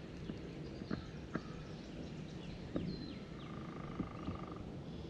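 Wild birds calling: short high chirps and quick down-slurred whistles, with a trill of about a second near the middle. Underneath are a low rumble and a few sharp clicks.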